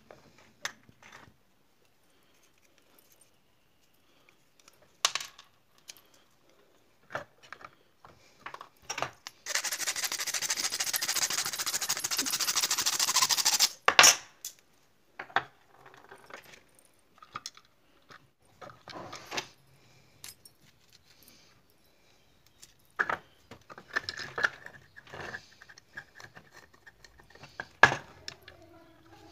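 Small metal and plastic parts of a scale-model tractor, and tools, clicking and clinking against each other and the wooden workbench as a gear shaft is fitted into the chassis. About ten seconds in there is a loud, even hiss lasting about four seconds, cut off by a sharp click.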